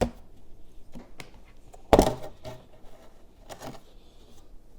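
Aluminium bottom case of a MacBook Pro being pulled off and handled: a sharp click at the start, a louder knock about two seconds in and another a second and a half later, with faint ticks between.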